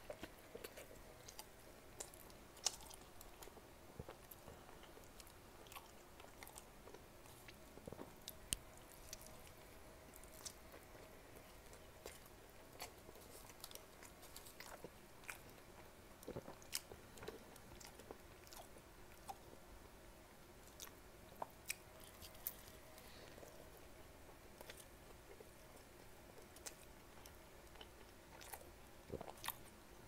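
A man biting and chewing a double quarter-pound cheeseburger, faint, with many short wet mouth clicks and smacks spread through it. A weak steady hum sits underneath.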